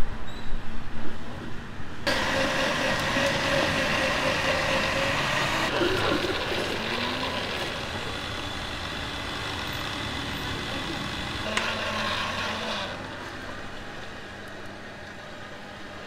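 Countertop blender motor switched on, running steadily for about ten seconds while blending a fruit smoothie, its tone changing partway through, then switched off.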